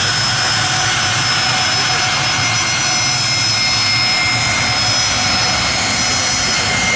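Gulfstream business jet taxiing, its rear-mounted turbofan engines running at idle: a steady whine of several high tones over an even hiss.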